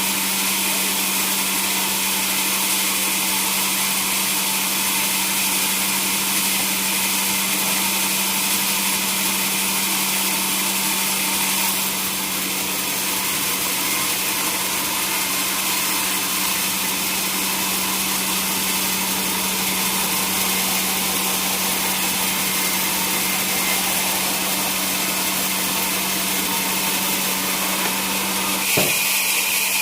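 Sawmill saw machinery running steadily, a constant motor hum under a continuous noisy saw sound. The sound changes abruptly just before the end.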